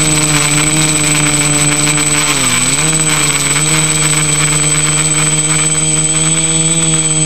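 The electric motors and propellers of an FPV multirotor drone hum steadily, heard loud and close from the drone's own camera. About two and a half seconds in, the pitch dips briefly as the motors slow, then rises back.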